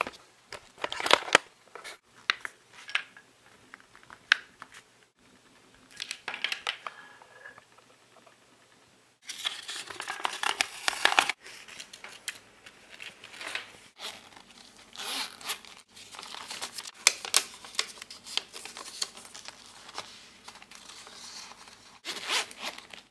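Hands rummaging through paper and a small fabric pouch: irregular bursts of rustling, crinkling and tearing with quiet gaps between, the longest and densest stretch about nine seconds in.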